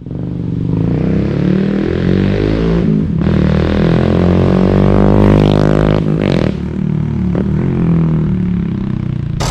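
Single-cylinder engine of a Honda CT125 motorcycle fitted with a 145cc big bore kit, running and revving, its pitch rising and falling.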